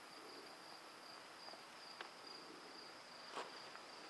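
Faint, steady high-pitched insect song, with a couple of light clicks, one about two seconds in and another near the end.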